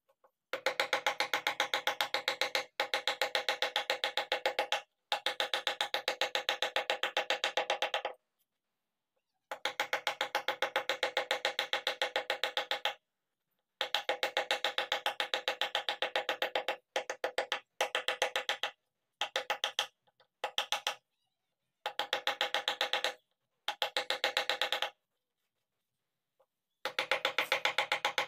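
Wooden mallet rapidly tapping a carving chisel into a wooden panel, with a hollow knocking ring, in runs of a few seconds broken by short pauses.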